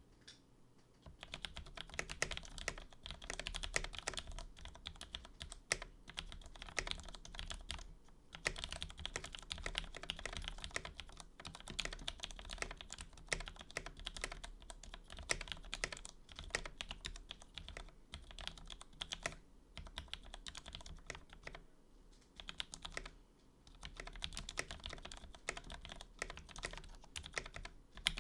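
Steady typing on a full-size mechanical keyboard with lubed Cherry MX Black Hyperglide linear switches on an FR-4 plate in a hollow 3D-printed PLA case, a resonant sound. Rapid runs of keystrokes begin about a second in, with short pauses between bursts.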